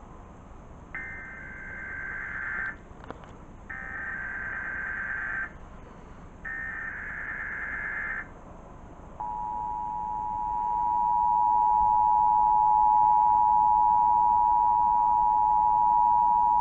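Emergency Alert System SAME header: three short bursts of high-pitched data warble, each under two seconds with about a second between, then the EAS two-tone attention signal, a steady dual tone starting about nine seconds in. This is the start of a required monthly test broadcast over the radio.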